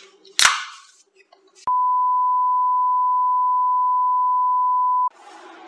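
Steady test-tone beep, one unbroken high pitch lasting about three and a half seconds, starting under two seconds in and cutting off suddenly: the reference tone that accompanies television colour bars. Before it there is a short rustle, and after it a faint hiss.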